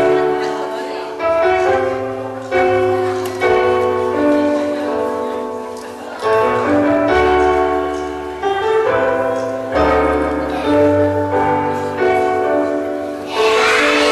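Slow piano music: chords and melody notes struck about once a second, each left to ring and fade.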